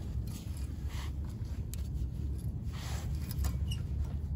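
Brake pad scraping and clicking against the caliper bracket as it is worked out by hand, over a steady low rumble.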